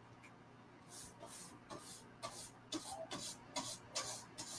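Bristle paint brush scrubbing chalk paste across a stencil on a wooden box frame in short, soft scratchy strokes, about two a second, starting about a second in.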